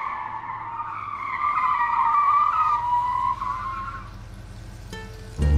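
Whine of small electric gear motors in radio-controlled toy construction models, wavering in pitch and fading out about four seconds in. Background music with plucked strings starts just before the end.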